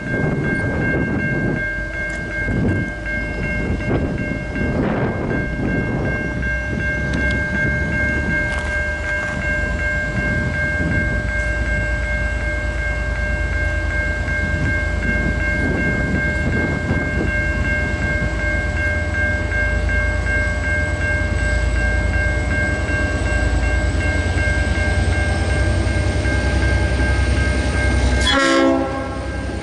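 V/Line N class diesel-electric locomotive pulling a passenger train away from a station: a steady low diesel rumble with several steady high tones over it and a faint whine rising slowly in pitch. Near the end a brief, louder burst of sound cuts in.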